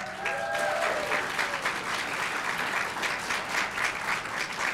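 Audience applauding steadily, with a few cheering voices in the first second.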